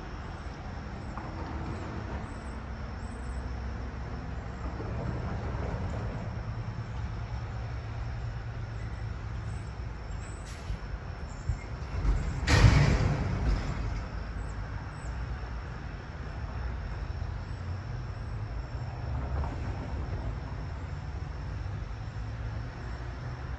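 Steady low rumble of a heavy vehicle idling, with a loud burst of air-brake hiss about halfway through that fades over a second or so.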